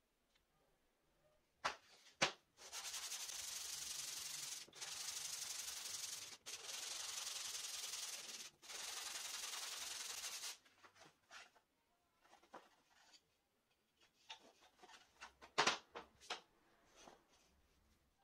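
A wooden block rubbed by hand across a sheet of sandpaper laid flat on a table: a steady rasping hiss in four runs of about two seconds each with brief pauses between. Two sharp knocks come just before the sanding, and scattered light knocks and taps follow it.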